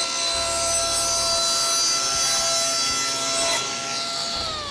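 Table saw running at full speed while a board is ripped through it with a push block, with a hiss of cutting on top of the motor's steady tone. A little past four seconds in the saw is switched off and its pitch falls as the blade spins down.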